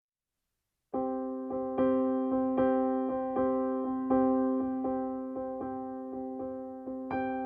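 Background music on a keyboard, slow notes struck about once a second over a held chord, starting after about a second of silence.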